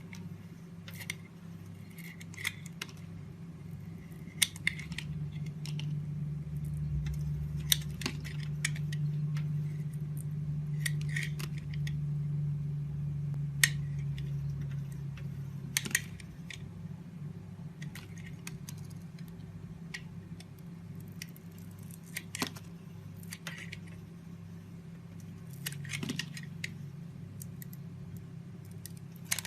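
A knife carving into a bar of soap: irregular sharp clicks and short scrapes as the blade cuts, over a steady low hum.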